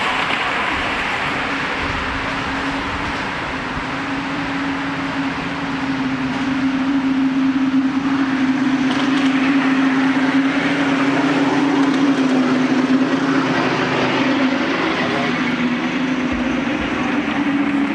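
Miniature railway train running on the track, a steady rolling rumble on the rails with a constant hum, growing louder about six seconds in and easing a little near the end.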